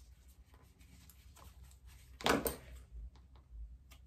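Sewing scissors snipping small notches into the edge of a fabric and cork bag panel to mark its centres, with the panel handled between snips. A brief louder rustle and click a little past two seconds in, then a few short faint clicks.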